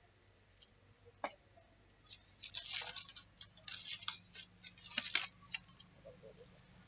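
Thin dry sticks clattering and crackling as a hand pushes them into the fire of a clay wood-fired stove: a couple of single clicks, then three short bursts of rapid clicks and crackles.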